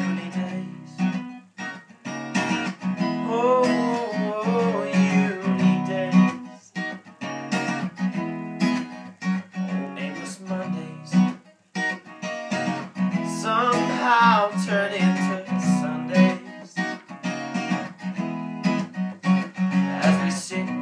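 Acoustic guitar strummed steadily in an instrumental break between verses, with a voice twice briefly joining in without words.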